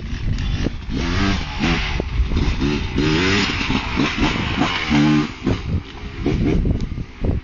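GasGas 300 two-stroke dirt bike riding past close by, its engine revving up and down repeatedly as the throttle is opened and closed, then pulling away.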